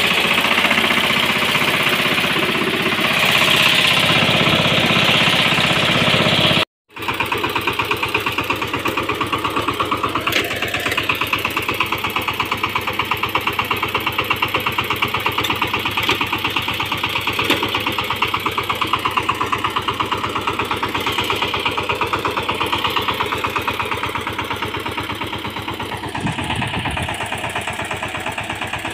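VST Shakti 130 DI power tiller's single-cylinder diesel engine running steadily with a fast, even chugging. The sound breaks off for a moment about seven seconds in, then the engine runs on.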